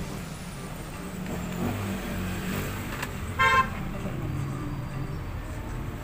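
A vehicle horn gives one short toot about halfway through, over a steady low rumble.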